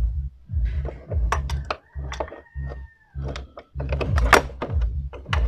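Socket ratchet clicking in short, irregular strokes, with knocks and handling thumps, as a scooter's oil drain plug bolt is snugged down. A faint held tone sounds for about a second and a half in the middle and dips slightly at its end.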